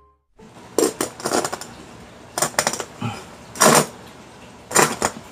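A meat cleaver striking the crisp skin of a whole roast pig (lechon): four short bursts of knocks and crackles, about one every second or so.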